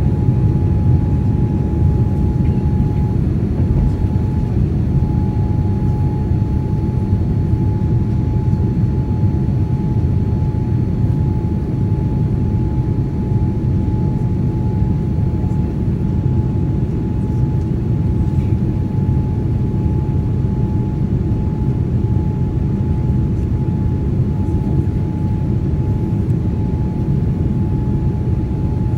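A Scoot Boeing 787-8's Rolls-Royce Trent 1000 jet engines at takeoff power: a loud, even low rumble with one steady high whine over it.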